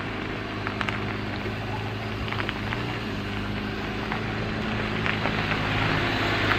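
A vehicle engine idling steadily under a low hum, with a few faint ticks, slowly getting a little louder.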